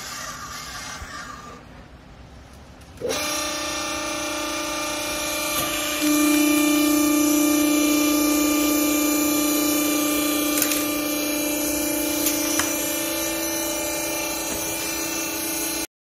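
Hydraulic power unit of a vertical rag baler, its electric motor and pump starting suddenly about three seconds in with a steady hum, which steps up louder about six seconds in.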